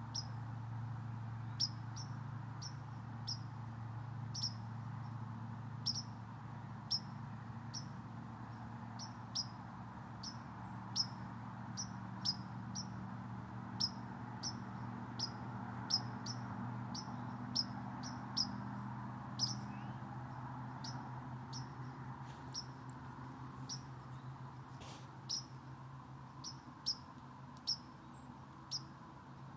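A bird giving short, high chirps over and over at an uneven pace, roughly once or twice a second, over a steady low hum.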